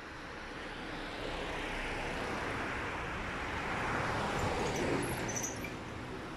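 A Volkswagen Transporter van towing a small box trailer drives past, its engine and tyre noise swelling to a peak about four to five seconds in and then fading, with a car following close behind.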